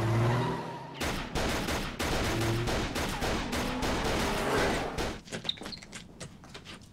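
Rapid automatic gunfire in long strings of shots from a TV drama soundtrack, dense for several seconds and thinning out near the end.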